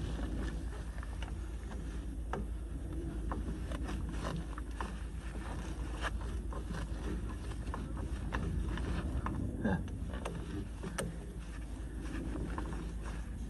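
Hand tool and gloved hands working the clamp and ribbed rubber intake hose off the turbo: scattered small clicks, knocks and scrapes over a steady low rumble.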